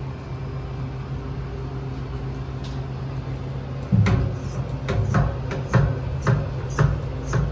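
A steady low mechanical hum. About halfway through, a regular series of sharp clicks or knocks starts, each with a low thud, about two a second.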